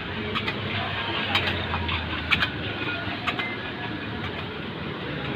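City street traffic ambience: a steady hum and rush of passing vehicles, with scattered sharp clicks and knocks through it.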